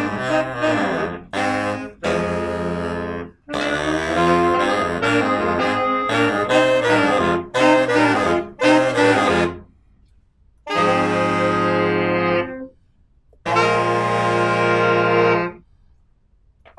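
Saxophone quintet playing a fast, busy riff with a low bass line under it. It then breaks off into two long held chords, each cut off sharply and followed by a short silence.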